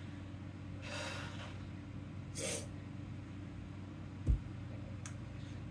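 A woman breathing in shakily and sniffling as she holds back tears: a long breath about a second in, then a short sharp sniff. A little past four seconds comes a brief low thump, the loudest sound, followed by a faint click.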